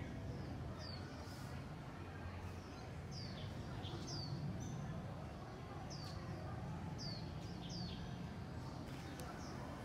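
A small bird chirping: short, high notes that each sweep downward in pitch, repeated at irregular intervals roughly once a second, over a steady low background rumble.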